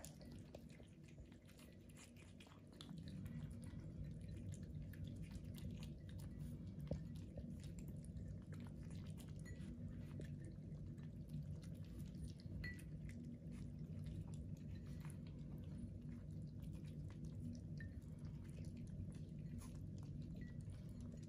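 Pomeranian puppies eating dry kibble from small saucers: faint crunching and many small, irregular clicks of kibble and teeth against the plates.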